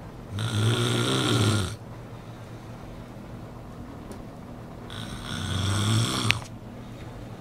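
A woman snoring: two loud snores with a low buzz, each lasting over a second, about four and a half seconds apart, the second ending in a sharp click.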